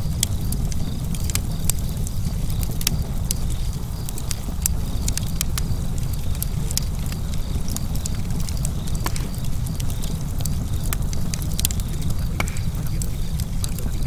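Fire crackling: irregular sharp pops and snaps scattered over a steady low rumble.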